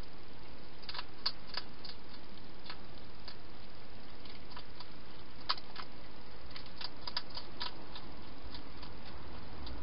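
European hedgehog eating from a dish: irregular small clicks of chewing, some in quick clusters, over a steady hiss.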